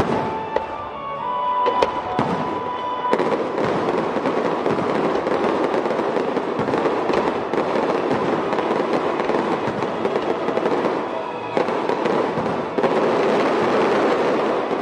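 Aerial fireworks going off in a continuous barrage. From about three seconds in, the shells fill the air with a dense crackle of many small pops.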